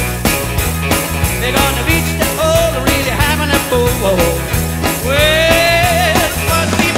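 Live rock and roll band playing a fast number with a steady beat and walking bass, a male voice singing over it and holding one long wavering note about five seconds in.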